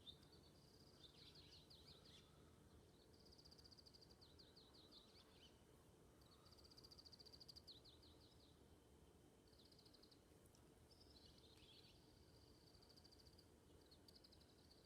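A songbird singing faintly, repeating the same high phrase about every two to three seconds: a fast trill on one pitch followed by a quick run of falling notes.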